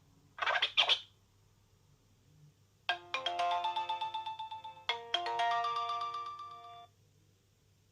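Nokia 6230i mobile phone ringtones: a brief burst of chirping tones about half a second in, then, after a pause, a quick electronic melody of short notes played as one phrase and repeated once.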